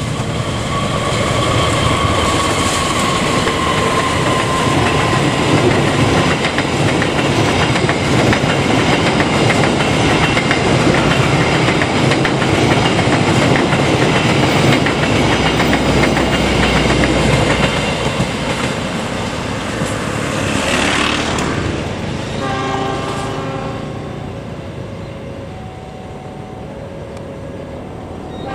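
An Indonesian KAI diesel locomotive sounds its horn as it passes, one held note that sags slightly in pitch over the first few seconds. Then comes the loud rumble and wheel clatter of the passenger coaches going by for about twenty seconds. Near the end the sound drops to a quieter stretch with a few short tones.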